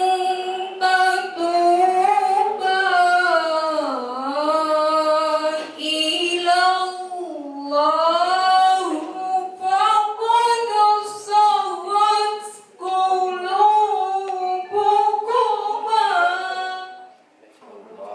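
A woman reciting the Qur'an in the melodic tilawah style into a handheld microphone: long held, ornamented phrases that glide up and down, with short breath pauses. The voice stops shortly before the end.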